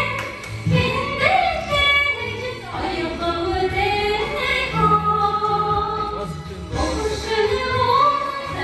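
A woman singing into a microphone, holding long notes that slide up and down in pitch.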